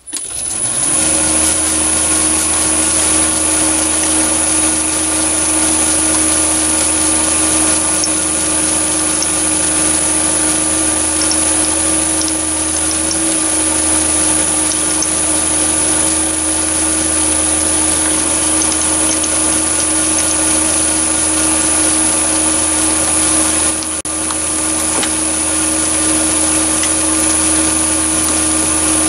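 Metal lathe spinning up within the first second, then running steadily at about 435 rpm: a steady motor and gear hum with a high whine over it.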